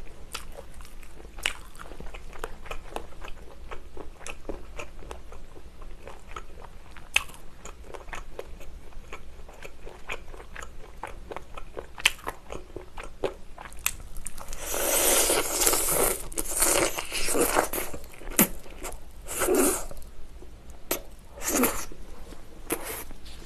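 Close-up eating sounds of a person biting and chewing fried chicken with green onion kimchi: wet mouth clicks and smacks throughout, with a louder, noisier stretch of biting and crunching a little past the middle and two more short loud bites near the end.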